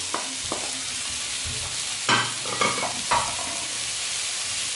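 Diced celery, onion and red bell pepper sizzling in olive oil in a frying pan while a wooden spatula stirs and scrapes against the pan. A few light knocks come near the start and three louder scrapes a little past halfway.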